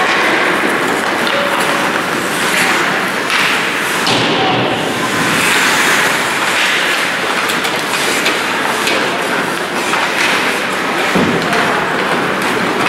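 Ice hockey play in an ice rink: a steady hiss of skates on the ice and background noise, broken by repeated knocks and thuds of sticks, puck and players against the boards.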